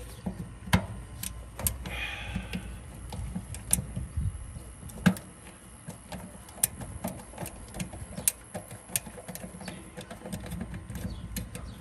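Nut driver turning a screw on the condenser's capacitor bracket to free the failed run capacitor for replacement: irregular small metallic clicks and ticks.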